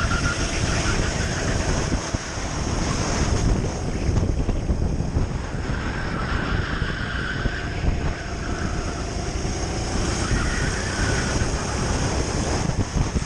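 Onboard sound of a Sodi RT8 kart at racing speed: its engine running under a steady rush of wind buffeting the microphone.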